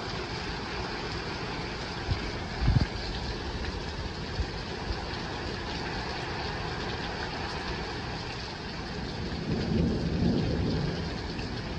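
Heavy rain falling steadily in a thunderstorm, with a brief low thump about three seconds in and a low rumble of thunder swelling near the end.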